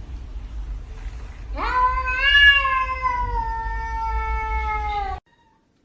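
A domestic cat's long, drawn-out yowl, rising sharply and then slowly sinking in pitch, the caterwaul of an agitated cat, cut off abruptly near the end.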